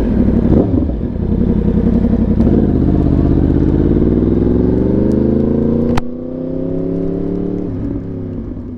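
Yamaha R1 sportbike engine through an SC Project exhaust, pulling hard with its pitch rising steadily for several seconds. A sharp crack comes about six seconds in, after which the engine is quieter at a steady pitch and fades out near the end.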